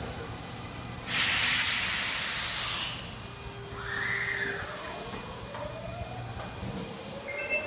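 Kita-Osaka Kyuko 9000 series subway train drawing to a halt at the platform: a sudden loud hiss of released compressed air about a second in, fading over about two seconds, then a brief rising-and-falling whine. A pair of high steady tones starts near the end.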